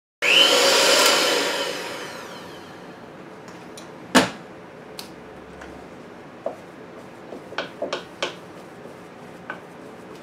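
Electric hand mixer running in a bowl of mashed potatoes, then winding down, its pitch falling as it fades over about two seconds. After that come a few light knocks and clicks of a spoon against the bowl.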